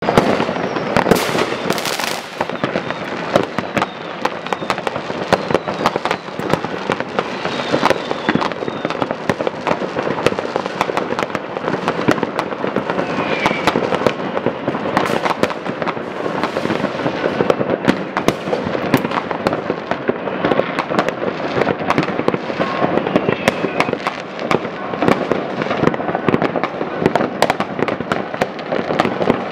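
Fireworks and firecrackers going off all over a town at once: a dense, continuous crackle of bangs, near and far, with a few short whistles.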